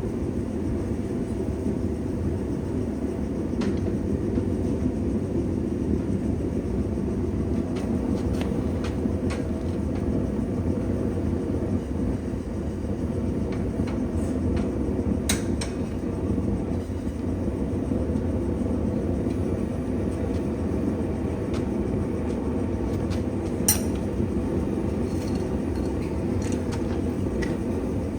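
A blacksmith's forge running: a steady, loud low noise with no change, with a few faint sharp metal clicks, the clearest about 24 seconds in.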